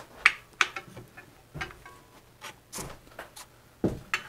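Spoke wrench clicking on a bicycle wheel's spoke nipples as they are turned to true the wheel: about five sharp, irregular clicks and ticks.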